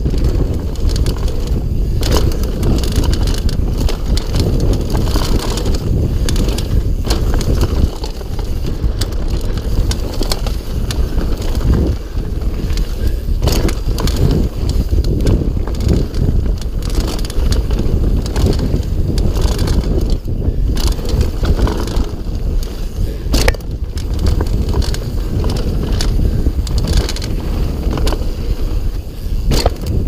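GT Sanction mountain bike descending a loose gravel trail, heard from a chest-mounted camera: a constant rumble of tyres over stones and wind on the microphone, with rattling from the bike and a few sharp knocks as the wheels strike rocks.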